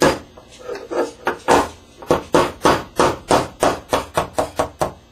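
Small hammer tapping a pin into a 1911 pistol's frame to seat the mainspring housing: a quick series of sharp metal taps, about four a second, coming a little faster near the end.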